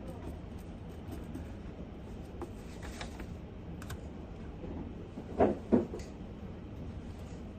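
Light clicks and taps at a study desk over a steady low room hum, with two sharp taps close together about five and a half seconds in.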